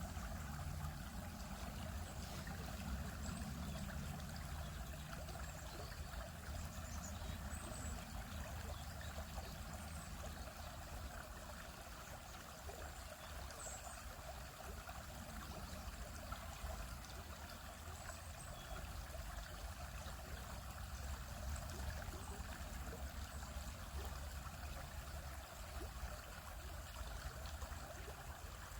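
Small stream flowing over rocks: a steady rush of running water with a light trickle and babble.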